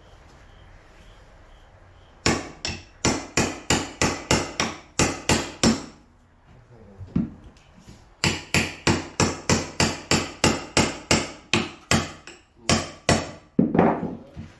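A hammer striking wood in two runs of quick, even blows, about three a second, with a pause of a couple of seconds between them and a few more blows near the end.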